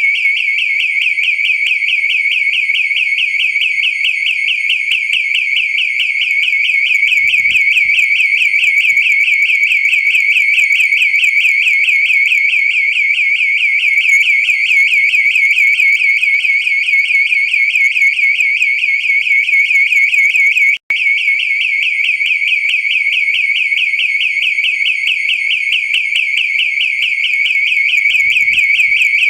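Residential burglar alarm siren sounding continuously: a loud, high-pitched, rapidly warbling electronic tone, with one momentary break about two-thirds of the way through.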